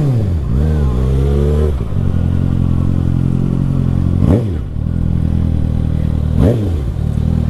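Sport motorcycle with a loud aftermarket exhaust idling steadily, with three quick throttle blips: one just after the start, one about four seconds in and one about six and a half seconds in.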